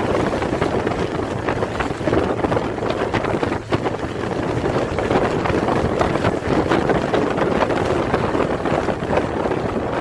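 Strong wind buffeting the microphone over water rushing past at speed: steady, loud noise with no let-up.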